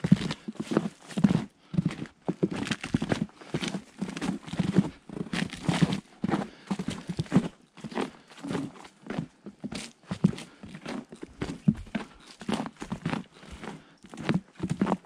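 Boots crunching step after step in a thin layer of fresh snow on a wooden plank boardwalk, at a steady walking pace.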